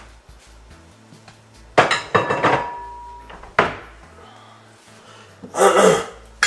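Kitchen clatter: hard knocks and clinks of pots, dishes and utensils. A cluster of strikes comes about two seconds in, one ringing briefly, then a single knock, and a longer rattling clatter near the end.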